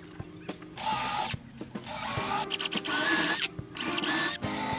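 Cordless drill boring into the end grain of a wooden post. It runs in several short bursts, its motor whining up each time the trigger is pulled and stopping between them.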